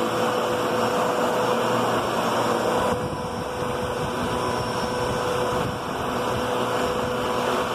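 12-amp Kenmore Progressive upright vacuum cleaner running steadily as it is pushed over carpet, its motor giving a constant whine over the rush of air.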